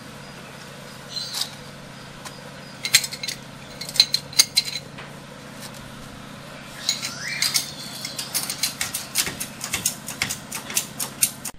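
Metal hand tools clinking and tapping against metal while someone works at a car's front wheel: a few scattered clinks, then a quicker, uneven run of clinks in the second half.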